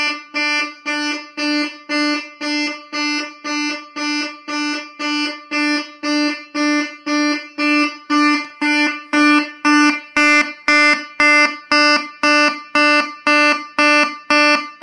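Keyboard synthesizer imitating a Simplex 2901-9806 fire alarm horn, sounding in march time. Short buzzy horn blasts come about twice a second (120 beats a minute), steady and loud.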